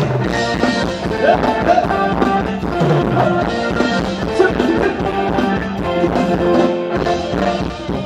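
Thai ramwong dance music from a band, with a steady beat.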